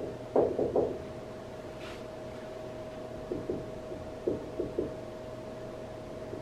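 Marker writing on a whiteboard: a quick run of squeaky strokes about half a second in, then a few lighter taps and strokes a few seconds later, over a steady hum.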